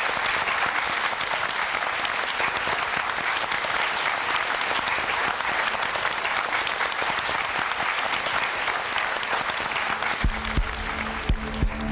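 Studio audience applauding steadily. About ten seconds in, music with a low, regular thudding beat starts under the applause.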